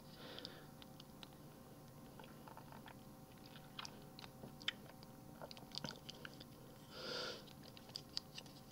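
Faint, scattered clicks and taps of a plastic toy part being handled, its pieces pushed back and snapped closed as a foot piece is folded into a shield.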